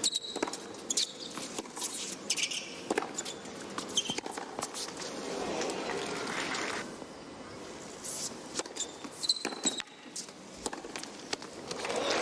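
Tennis balls struck by rackets and bouncing on a hard court, a series of sharp knocks, with short high squeaks of tennis shoes and crowd noise from the stands.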